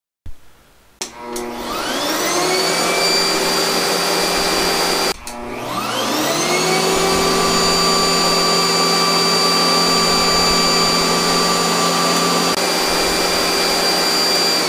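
12-amp upright vacuum cleaner powered from a 1000-watt pure sine wave inverter. It is switched on with a click, and its motor spins up with a rising whine to a steady running note. About five seconds in it cuts out briefly, then spins back up and runs steadily.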